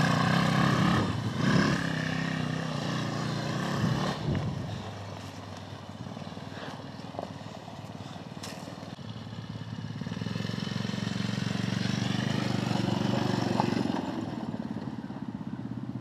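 Off-road go-kart's small four-stroke engine running under throttle as the kart drives away over rough ground. It fades to faint in the middle and grows louder again as the kart comes back, with a couple of knocks from the kart in the first few seconds.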